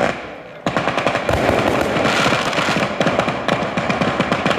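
Daytime firework battery: one sharp bang, then from under a second in a dense, fast run of firecracker reports, many a second.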